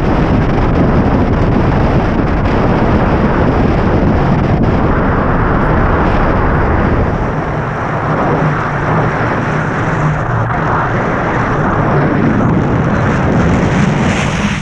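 Loud, steady wind rushing over the microphone of a camera held out on a selfie stick during tandem paraglider flight, easing a little about halfway through.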